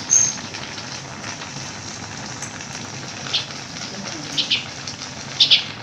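Crabs and vegetables simmering in coconut milk in a metal wok, a steady bubbling hiss. A few short, sharp clicks come through it, the loudest just after the start and a cluster near the end.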